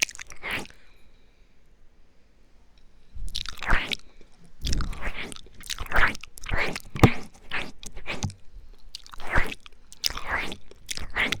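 Close-miked ASMR ear-eating mouth sounds: wet lip smacks, tongue clicks and sucking noises in irregular bursts, with a lull of about two seconds near the start.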